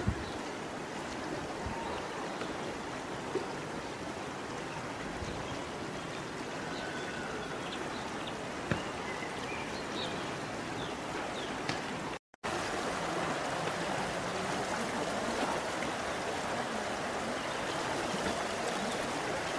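River water running steadily over shallow rapids, a continuous rushing. The sound breaks off for a moment about twelve seconds in, then returns a little louder.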